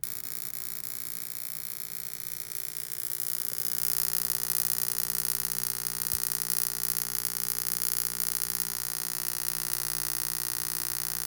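High-voltage arc buzzing and hissing across the electrode gap of a Carlin 41000 oil-burner ignition transformer, with a steady mains hum under it. It strikes suddenly, grows louder and brighter over the first few seconds as the voltage is raised, then holds steady and cuts off suddenly; the arc shows the igniter is working.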